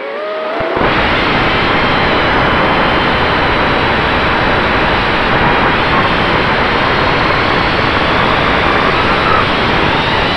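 Eachine Wizard X220 FPV quadcopter's brushless motors and propellers whining at high throttle under a heavy rush of air on the onboard camera's microphone. The throttle comes up sharply about a second in, and the motor whine shifts in pitch as the quad manoeuvres.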